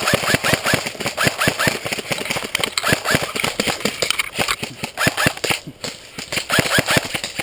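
Airsoft guns firing a rapid, uneven string of sharp snapping shots, several a second, with a brief pause near the end.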